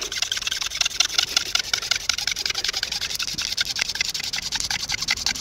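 Hand-drill friction fire: a cattail spindle spun fast between the palms, grinding into a cottonwood-root hearth board with a steady, rapid rhythmic rasping.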